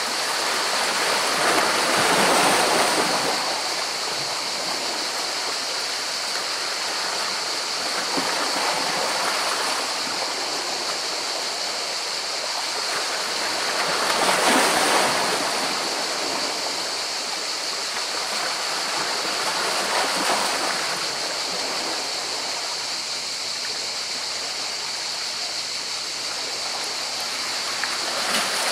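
Sea waves washing in over rocks: a continuous rush of water that swells as each wave breaks, about every six seconds.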